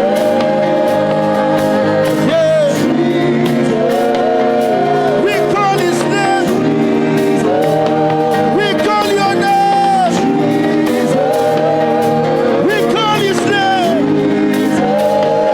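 Gospel praise singing with instrumental backing: voices holding long notes in short repeated phrases over a steady accompaniment.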